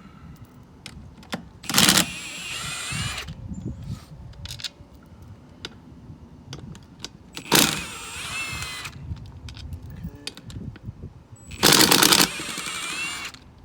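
Cordless impact wrench spinning out beadlock ring bolts in three bursts about five seconds apart. Each burst is a brief loud rattle followed by a second of whirring as the loosened bolt runs out. Small metallic clicks of bolts and washers being handled sound between the bursts.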